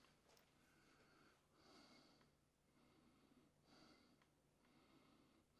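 Near silence: faint room tone with soft breath-like sounds recurring about every two seconds.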